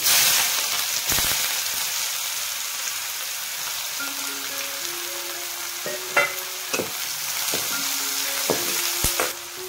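Finely chopped onion hitting well-heated oil in a steel kadhai: a loud sizzle starts at once and eases off slowly. From about six seconds in, a few sharp taps on the pan as the onion is stirred.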